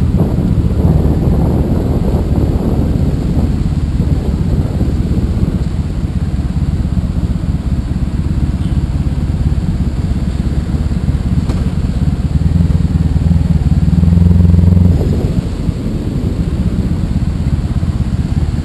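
Honda ST1100 Pan European's V4 engine running at low speed, heard from on the bike; it grows louder for a couple of seconds about two-thirds of the way through, then drops back to a lower, steady hum.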